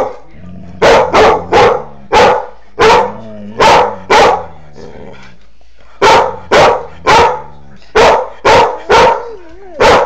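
Doberman pinscher barking in quick, uneven volleys, about fourteen loud, sharp barks with a pause of over a second near the middle. A low growl rumbles between the barks in the first half.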